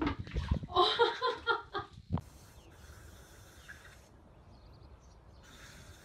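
A kitten's rapid, pitched meowing cries over the first two seconds, ending in a single low thump. After that, only quiet outdoor background with faint gusts of hiss.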